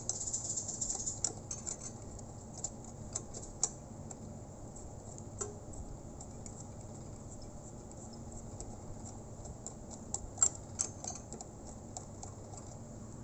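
Light metallic clicks and taps of fingers handling small fittings on a metal RC truck chassis at its rear axle, scattered and irregular, bunched at the start and again about ten seconds in.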